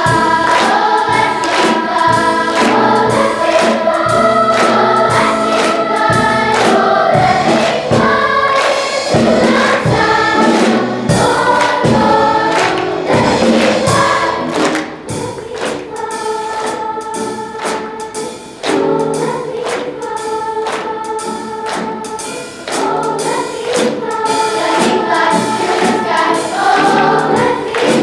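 Large children's choir singing with accompaniment. It drops to a softer passage about halfway through and grows louder again near the end.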